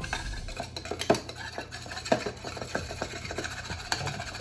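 Wire whisk beating an oil and soy sauce mixture in a small bowl: a quick, uneven run of clinks and scrapes of the wires against the bowl, with a few louder knocks.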